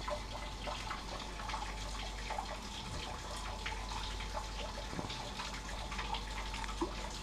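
Flat paintbrush dabbing and brushing a wet caustic soda and xanthan gum stripping gel onto a painted metal panel: soft wet brushing with many small ticks and clicks over a steady faint hiss.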